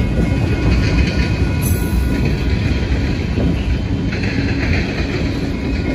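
Freight train of tank cars and boxcars rolling past, its steel wheels running on the rails with a steady, loud noise heaviest in the low end.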